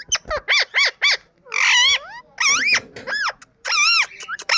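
Indian ringneck parrot calling in a quick run of short squawks, each rising then falling in pitch, with one longer, harsher call about a second and a half in.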